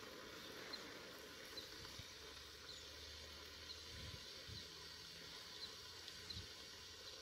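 Quiet outdoor background with a bird's short high chirp repeating about once a second, and a faint low hum that comes and goes.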